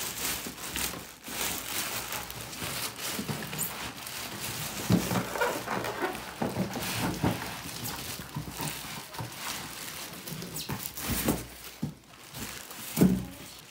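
Clear plastic wrapping crinkling and a cardboard carton scraping and flexing as a heavy steel fire safe is pulled out of its box, with a few short effortful grunts from the lifter.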